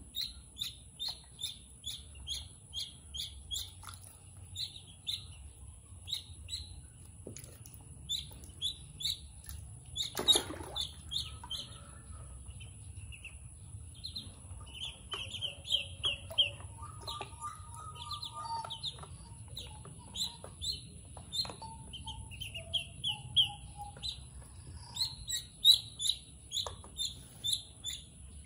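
Ducklings peeping: many short, high chirps, a few a second, some in quick runs. One louder noise comes about ten seconds in, and a faint steady high-pitched tone runs underneath.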